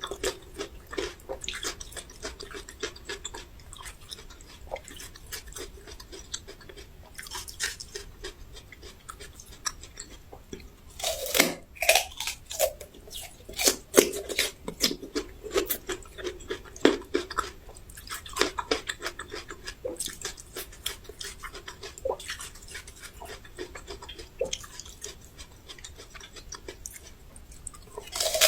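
Close-miked chewing and crunching of raw ginger: many small wet crunches and mouth clicks, with louder crunchy bites about eleven seconds in and again at the end.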